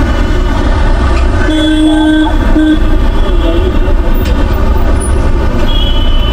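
Wind rushing over the microphone of a moving bicycle in busy street traffic, with vehicle horns sounding about a second and a half in and again near the end.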